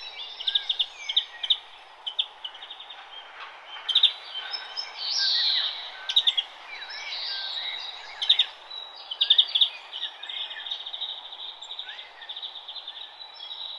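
Several songbirds chirping and singing, short repeated chirps and trills overlapping one another, over a steady low hiss of background noise.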